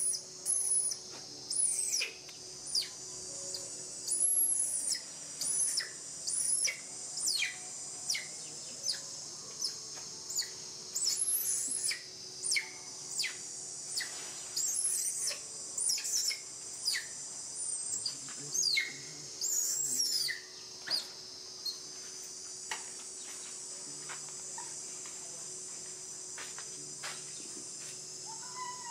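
Baby macaque crying out as it is massaged: a series of short, high-pitched cries, about one a second, each falling in pitch, which stop about two-thirds of the way through. A steady drone of insects such as crickets runs underneath.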